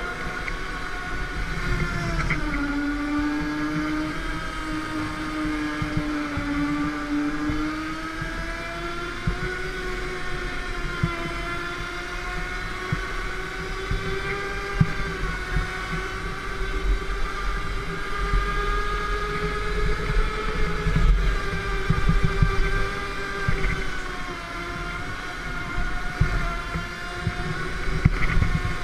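Go-kart driving laps, heard from on board: a steady motor whine whose pitch rises and falls with speed through the corners, over a low rumble with occasional knocks.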